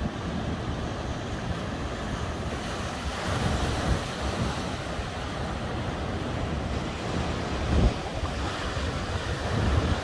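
Ocean surf breaking and washing up the shore in a continuous rush, swelling about three seconds in. Wind rumbles on the microphone throughout, with a low thump a little before the end.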